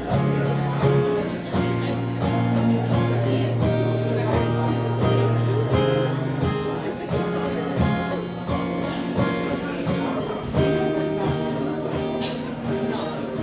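Live country song's instrumental break: guitar strumming a steady rhythm, with sustained low notes underneath and no singing.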